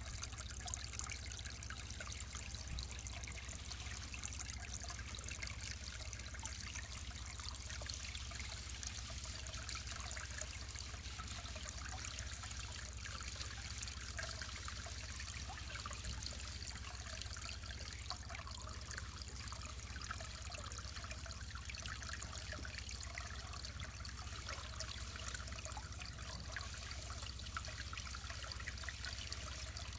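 Small mountain stream trickling and splashing steadily over rocks, with a steady low rumble underneath.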